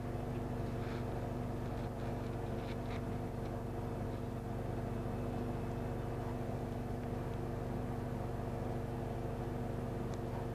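A steady low mechanical hum, with a few faint rustles of gloved hands stirring loose worm compost, about a second in and around three seconds in.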